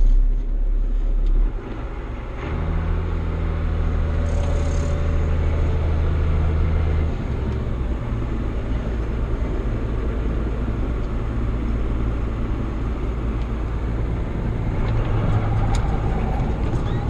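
Farm tractor engine running steadily, with a low hum that holds a steadier note from about two and a half to seven seconds in.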